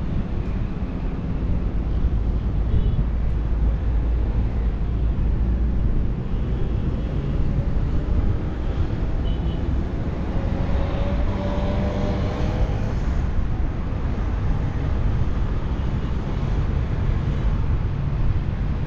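Passenger train passing at speed behind a diesel-electric locomotive: a steady, loud low rumble of the train running past, with a faint rising whine near the middle.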